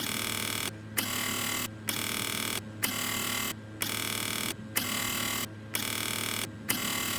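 Rusty, dirty Samsung washing machine running: a rough mechanical whir that repeats about once a second, each stroke starting with a click and cut by a short pause, over a steady low hum.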